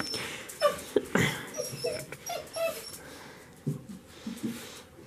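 A dog whining in a run of short, high cries, some sliding in pitch, with a few small knocks and rustles in between.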